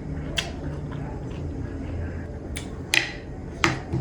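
Close-up eating sounds of spiced citron with yogurt: four sharp, wet mouth clicks and lip smacks while chewing, over a low hum.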